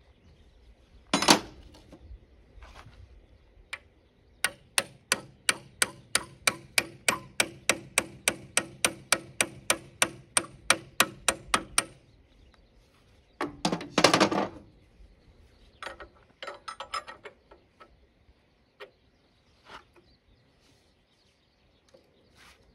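Steel hammer tapping a metal fitting on a mini excavator's track frame, about four even, ringing taps a second for some seven seconds. A louder metallic clatter comes about a second in and again near the middle.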